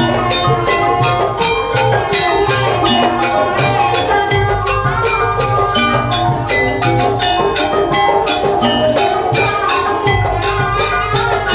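Live Banyuwangi gamelan ensemble playing a fast, loud piece: rapid even strokes of metal and wooden percussion over pitched melody notes, with drum and gong beats underneath.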